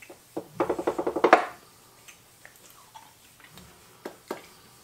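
A person's short, pulsing giggle, followed by a few faint clicks and taps.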